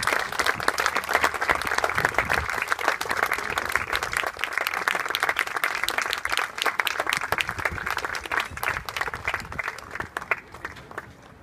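Applause from a small crowd, a dense patter of clapping that thins out near the end.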